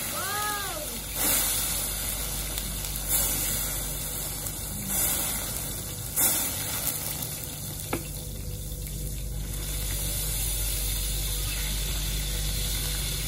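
Tableside steak fire show: several loud whooshing flare-ups of flame over hot grill plates, one about every two seconds in the first half, then steady sizzling as raw steak sears on the hot plates.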